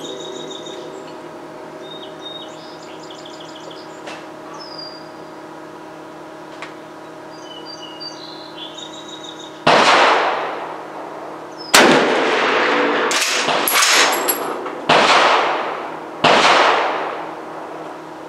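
Rifle shots ringing out across an open range. There are four loud shots about one and a half to two seconds apart, starting about ten seconds in, with two sharper cracks between the second and third, and each shot rings off. Birds chirp in the quiet stretch before the firing.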